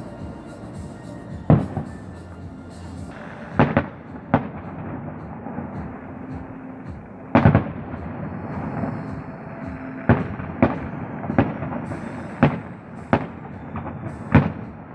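Aerial firework shells bursting, about ten sharp bangs at irregular intervals, the loudest about halfway through.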